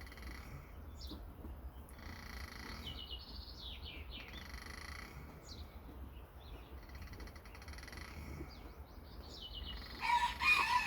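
Small birds chirping again and again, with a louder pitched call lasting about a second near the end.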